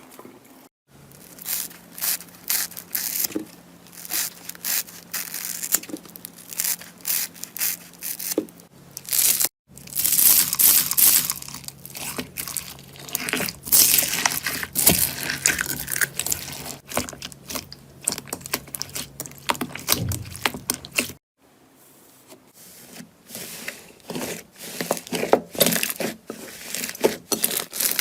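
Slime being squeezed, poked and stretched by hand, with dense crackling, crunching and popping. It runs as a string of separate clips that cut abruptly from one to the next.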